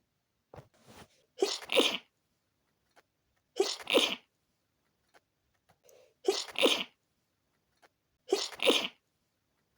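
A person sneezing four times in a row, about two seconds apart, from a tickly nose. Each sneeze is a short voiced catch followed by a sharp burst of air.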